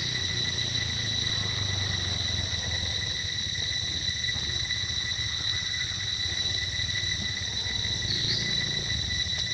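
Steady high-pitched drone of forest insects, unbroken and even, over a low background hum, with one short faint chirp about eight seconds in.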